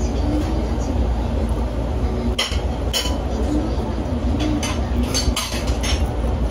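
Chopsticks clicking and clinking against a plate while picking apart a grilled fish, several sharp clicks in the second half, over a steady low rumble of room noise with faint background voices.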